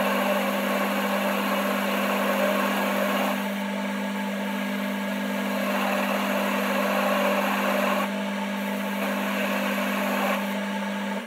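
Metal lathe running with a steady motor hum while a cutting tool faces off the end of a metal blank, the hiss of the cut rising and falling in places. The sound cuts off suddenly near the end.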